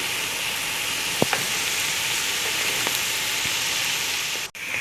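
Bala el-sham, piped choux-dough fingers, deep-frying in hot oil with a steady sizzle. A few light clicks sound as the pieces are turned, and the sound breaks off for an instant near the end.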